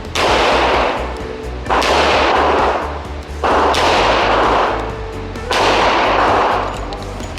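Four revolver shots, roughly one every two seconds, each loud crack followed by a long fading ring.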